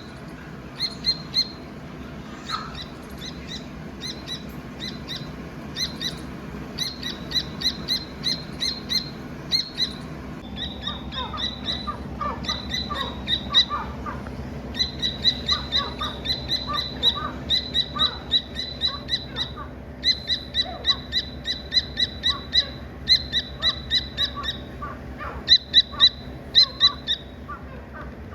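Dakni teter chick chirping: short, high peeps in quick runs of several a second, repeated throughout. Softer, lower chirps join in from about ten seconds in.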